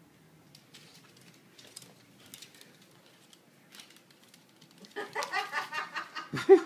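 Faint scattered clicks and taps of a small dog's claws and bare feet on a hardwood floor. About five seconds in, loud laughter breaks out in quick pulses.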